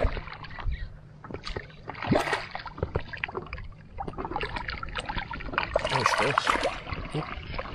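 Water splashing and sloshing as a hooked cutthroat trout thrashes at the surface beside a landing net and is scooped up. The splashing comes in irregular spurts and is heaviest about six seconds in, as the net comes up out of the water.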